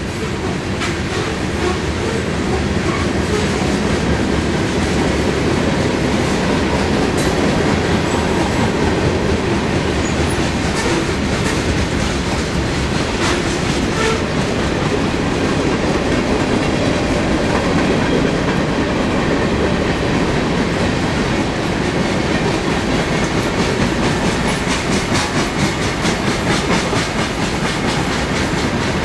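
Long freight train of covered hoppers and tank cars rolling past with a steady rumble, its steel wheels clicking over the rail joints. The clicking comes in a quicker run near the end.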